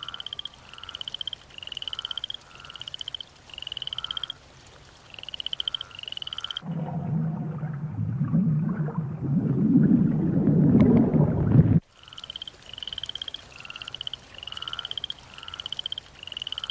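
Frogs calling over and over, each call a short pulsed croak rising in pitch, about every two-thirds of a second. For about five seconds in the middle they give way to a low underwater rumble that grows louder and then cuts off suddenly, and the frog calls return.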